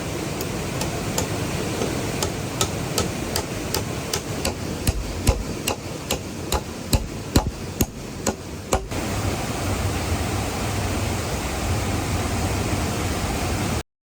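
Rapid, evenly spaced hammer-like strikes on wood, about three a second, over the steady rush of a waterfall. The strikes stop about nine seconds in, leaving the water's rush with a low rumble, and the sound cuts off sharply just before the end.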